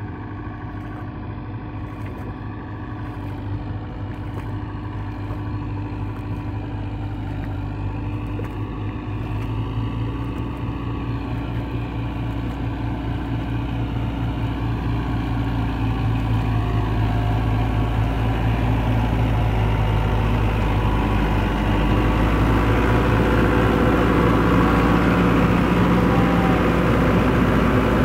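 Tractor diesel engine running steadily as it drives a rotavator (rotary tiller) through wet, waterlogged soil, growing gradually louder as it comes up close.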